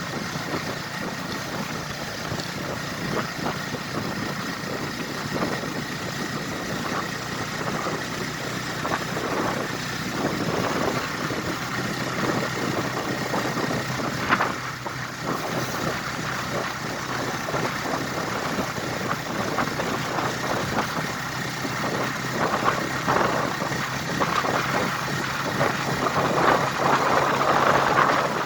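A vehicle engine running steadily, mixed with road noise, with one sharp click about halfway through.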